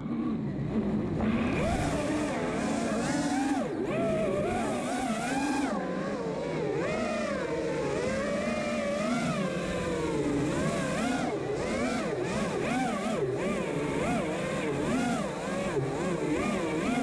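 A 5-inch FPV racing quadcopter's brushless motors and propellers whining in flight, the pitch constantly rising and falling with throttle as it swoops and dives.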